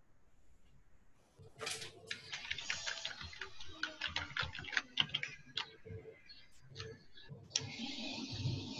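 Keyboard typing heard through an unmuted participant's microphone: quick, irregular clicks over a hiss, starting about a second and a half in. A steadier open-microphone hiss takes over near the end.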